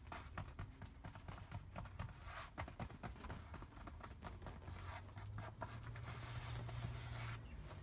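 Light, irregular clicking and scratching, like small taps and rubs at close range. About five seconds in, a low engine hum of a passing vehicle comes in and slowly grows louder.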